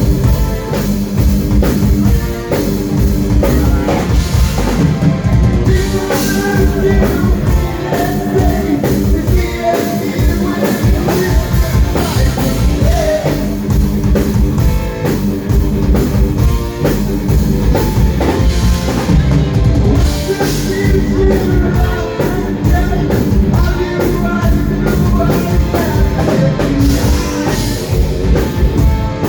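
Live rock band playing loud, continuous heavy rock, a full drum kit driving the beat.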